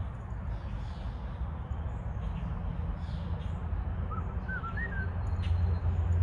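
Outdoor ambience: a low, steady rumble that grows louder toward the end, with a few short, quick bird chirps about four seconds in.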